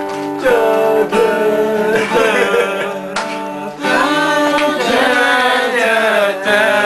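A man singing long, gliding notes over a strummed acoustic guitar.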